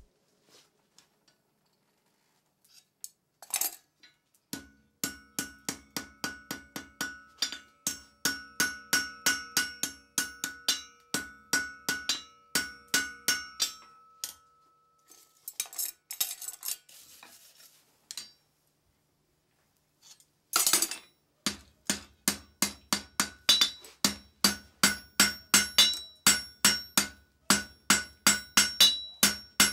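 Hand hammer striking a hot steel bar on an anvil: fast, even blows about three a second, each with a ringing note from the anvil. The hammering starts about four seconds in, stops for several seconds past the middle, then starts again and runs on.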